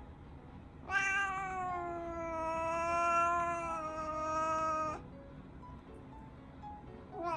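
Brown tabby cat giving one long, drawn-out meow of about four seconds, steady in pitch after a slight drop at the start: her chatty, wants-to-talk call.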